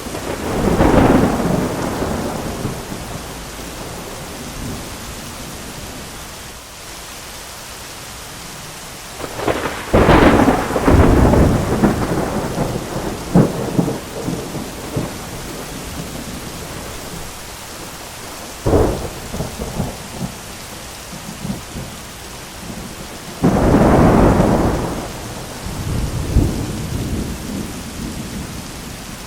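Thunderstorm with steady rain and repeated thunder. A rolling peal comes at the start, a long rumble broken by sharp cracks about ten seconds in, a short crack a little before twenty seconds, and another loud peal a few seconds before the end.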